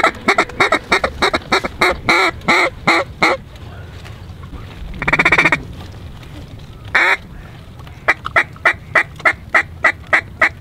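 Duck call blown close by in hen-mallard quacks: a run of quick quacks about four a second, a longer drawn quack midway, then another fast run of quacks. It is calling to ducks working the decoys.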